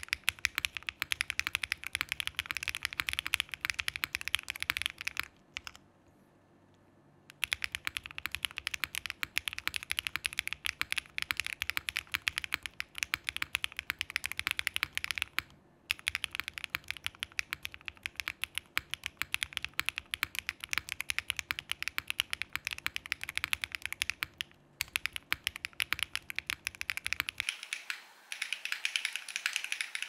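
Typing on a Dots87 mechanical keyboard with Briny switches, a PC plate and GMK Oblivion keycaps: a fast, continuous stream of keystroke clacks. The typing pauses for about a second and a half around six seconds in, and breaks off briefly twice more.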